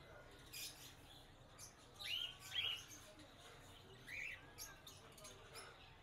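Faint, short chirps from caged lovebirds: three arching calls, two close together about two seconds in and one more about four seconds in.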